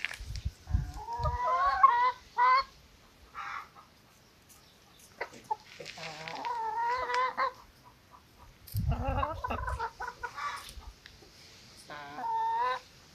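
Chickens clucking in three bouts of wavering calls: about a second in, around six seconds in, and near the end. Short low rumbles come in between.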